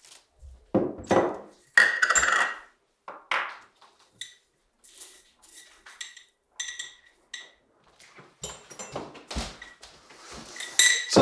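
Dishes and cutlery clinking and clattering on a kitchen counter: a string of separate clinks and knocks, several with a short ring, the loudest about two seconds in and again near the end.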